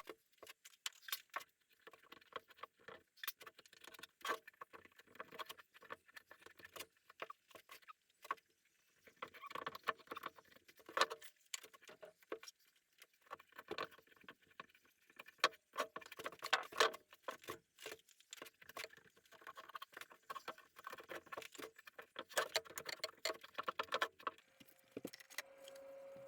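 Irregular light clicks, taps and rattles of wood and hand tools being handled at a workbench. A steady hum starts near the end.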